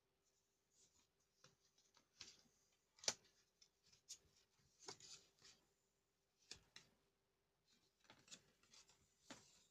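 Cardboard and paper packaging of a screen-protector box being handled: soft scraping and rustling with scattered light taps, the sharpest about three seconds in.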